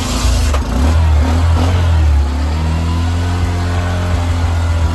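Petrol motorcycle engine running loudly, just brought back to life after a flat battery left it dead. It revs in the first second, then settles into a steady fast run.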